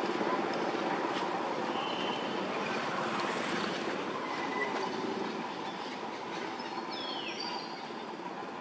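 A steady mechanical rumble with a rapid fine clatter, slowly fading. A few short high chirps, and a brief high call falling in pitch about seven seconds in.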